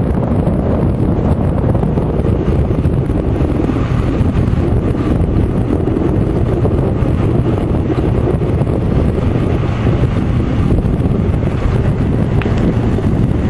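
Steady low rumble of wind buffeting the microphone of a camera riding on a moving electric bike.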